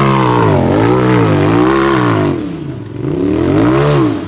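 An off-road vehicle's engine revved up and down in quick throttle blips, three in a row. It eases off briefly, then gives one more rev that cuts off near the end.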